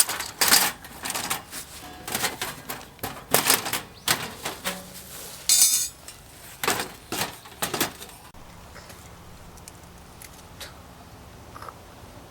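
Hard objects clinking and knocking in a quick, irregular run of sharp clatters, the kind made by handling camp tableware or cookware. The clatters stop about eight seconds in, leaving a low steady background.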